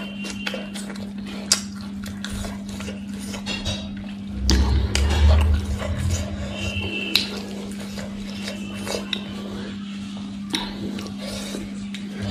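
Fingers picking and sorting shredded raw vegetable salad (Manipuri singju) on a wooden tray, with light rustling and many small clicks and taps. A louder low thump runs from about four and a half to six seconds in, over a steady low hum.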